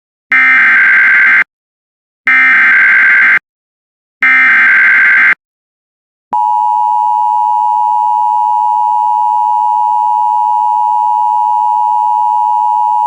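Emergency Alert System SAME header: three roughly one-second bursts of warbling digital data tones, evenly spaced. About six seconds in, the steady, loud two-tone EAS attention signal starts and continues.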